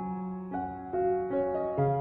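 Slow, gentle piano music: single notes over a held low note, a new note every half second or so.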